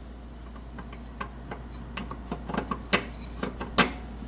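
Metal clicks and clanks of a 17 mm wrench working a bolt free on a car's lower control arm, scattered at first and coming faster and louder in the second half.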